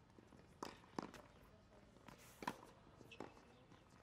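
Tennis rally on a hard court: four sharp pops of the ball striking the racket and bouncing, the loudest about a second in and midway, with shoe steps on the court between them.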